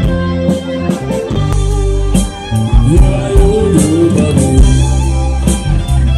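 Live pop-rock band playing through a PA: electric guitar, bass guitar and drums, with a melodic line sliding up and down in pitch midway through. No words are sung.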